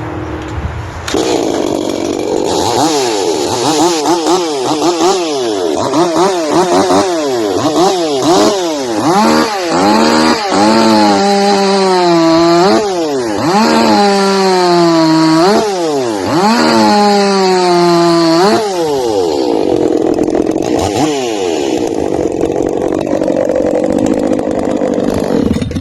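Echo CS-4310 43 cc two-stroke chainsaw, revved up and down repeatedly, then held at full throttle through three cuts into a poplar log, its pitch sagging under load in each cut. It then runs at lower revs and stops near the end.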